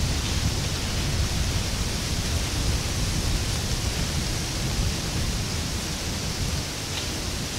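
Steady rushing noise: wind buffeting the camera's microphone, a low fluttering rumble under a constant hiss.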